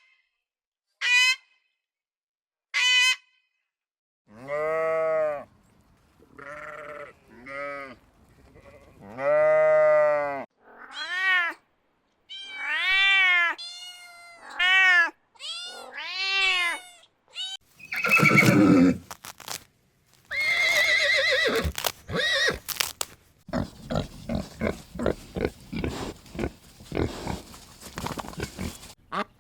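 A run of farm animal calls: a few short high chirps, then bleats whose pitch rises and falls, deep ones first and higher, wavering ones after. Near the end come a harsh, noisy call and then a quick string of short, rapid calls.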